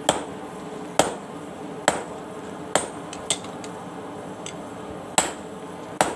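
Hand hammer forging steel on an anvil. Single blows come about once a second, each with a short metallic ring, and one is lighter than the rest.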